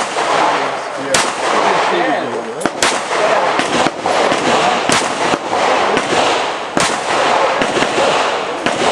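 Glock pistol being fired in a timed match string: about six sharp shots at irregular intervals, a second or two apart, two of them in quick succession near the middle. A steady hiss of background noise runs underneath.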